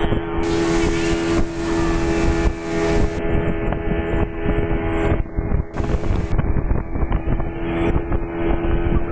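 Outboard motor of a small speedboat running steadily at speed with an even drone, over water rushing past the hull. Wind buffets the microphone in gusts that come and go.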